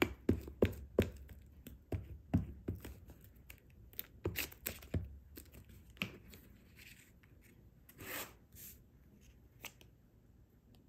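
Glue stick rubbed in short strokes across the back of a paper image, with small taps and scrapes of paper, then a brief paper rustle about eight seconds in as the image is picked up.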